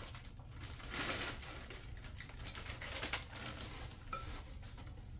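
Frozen carrot pieces shaken from a plastic bag into a pot, rattling in a few short bursts, with the bag crinkling.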